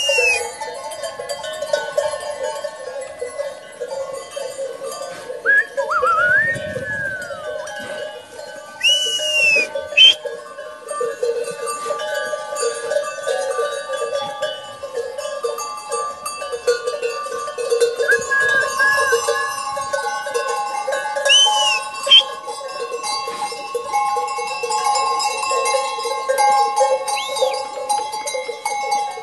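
Many bells on the necks of a flock of sheep and lambs ringing together without a break as the animals move, a dense jangle of overlapping tones. A few short high tones rise and fall over the bells now and then.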